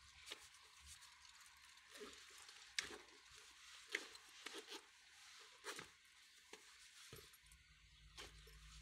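Faint handling sounds of a fabric-covered air compressor case being shut and zipped: scattered light knocks and clicks, the sharpest about three and four seconds in.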